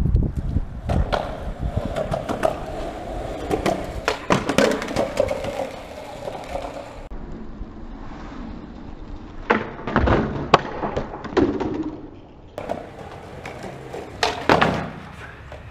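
Skateboard wheels rolling over rough concrete, broken by repeated sharp clacks and slaps of the deck and tail striking the ground during ollie attempts. The loudest hits come about ten seconds in and again near the end.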